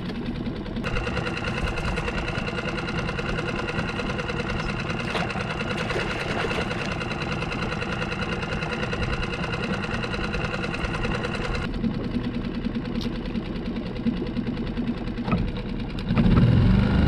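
Small skiff outboard motor running steadily at trolling speed, with a steady whine over its running for most of the stretch. The whine drops away about twelve seconds in, and the motor gets louder about a second before the end.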